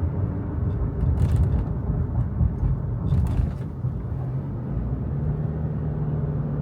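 Road noise and engine hum heard from inside a moving car, a steady low rumble; a steady low hum sets in about five seconds in.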